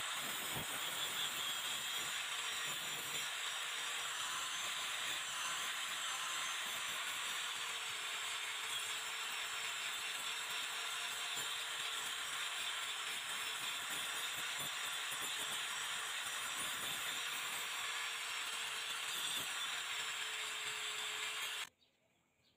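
Angle grinder with an abrasive disc grinding and sanding rust off a flat steel blade: a steady, loud grinding hiss with a faint motor whine running under it. The sound cuts off abruptly near the end.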